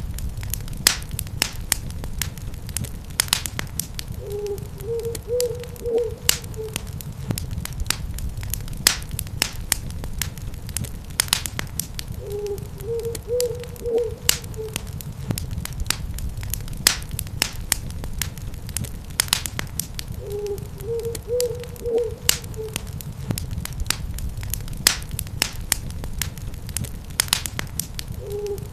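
Fireplace wood fire crackling and popping steadily over a low rumble. A short run of owl hoots comes in about every eight seconds, three times.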